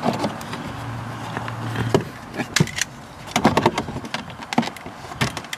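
Plastic door-handle parts being handled and fitted into a car door: a run of sharp clicks and knocks, most of them in the second half.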